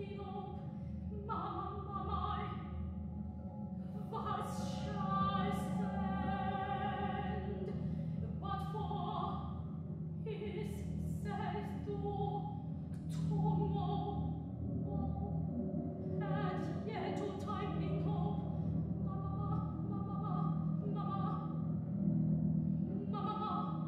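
Solo soprano singing a contemporary art-music vocal line in a series of phrases, over a steady low hum.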